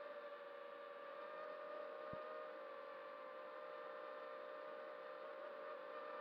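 Steady whine of a 5-inch FPV quadcopter's electric motors and propellers, picked up by the camera on board, holding an even pitch in level cruising flight. There is one faint click about two seconds in.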